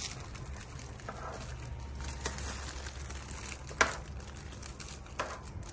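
A spoon stirring vegetables and beef in a large pot of simmering soup, with one sharp clink of the spoon against the pot a little before four seconds in and a softer knock just after five seconds, over a steady low hum.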